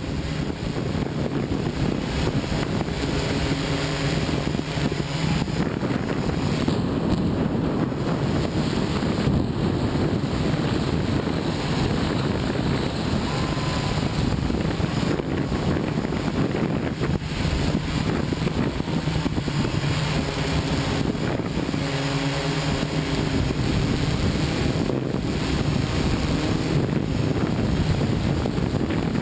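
Steady hum of a camera multicopter's electric rotors, with wind noise on the microphone. The demolition blast and collapse of the tower below do not stand out above it.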